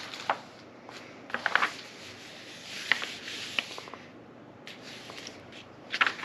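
Pages of a hardcover picture book being opened and turned by hand: scattered paper rustles and small clicks, coming in clusters about a second and a half in, around three seconds in, and again near the end as a page turns.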